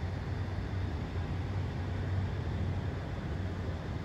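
Steady low engine rumble with a deep hum.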